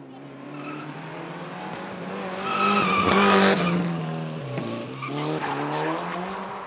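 Mitsubishi Lancer Evolution rally car's turbocharged four-cylinder engine revving hard as the car slides through a wet corner and passes close by. It is loudest about three seconds in, the revs drop briefly a little past halfway, then climb again.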